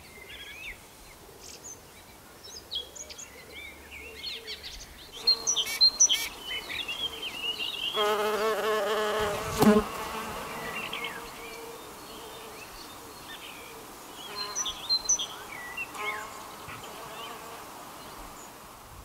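Horned mason bee (Osmia cornuta) buzzing in flight, a steady hum that comes in about eight seconds in and lasts a few seconds. Small birds chirp in the background.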